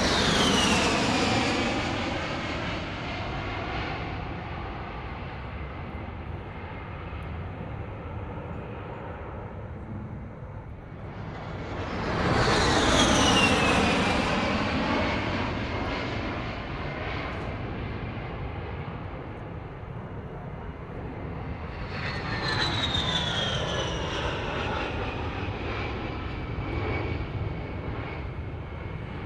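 A heavy vehicle passing by three times: each pass swells to a peak near the start, at about 13 seconds and at about 23 seconds, then fades with a falling sweep in tone over a steady rumble.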